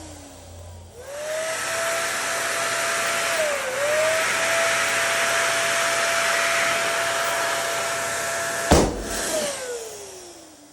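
Small electric air pump spinning up and blowing steadily as it inflates a balloon, until the balloon bursts with one sharp pop; the motor then winds down.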